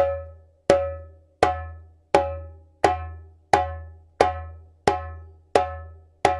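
Djembe slaps: ten evenly spaced strokes on the edge of the skin, about one every 0.7 seconds, each a sharp, bright crack that rings briefly with a low boom from the drum's body underneath.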